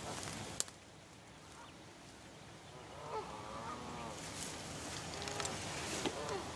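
Geese honking: a run of short calls about three seconds in and more near the end. A single sharp click sounds about half a second in.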